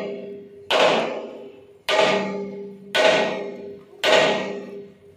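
Hammer striking the steel plate of a dump truck's tipper body: four heavy blows about a second apart, each leaving the plate ringing and fading away before the next.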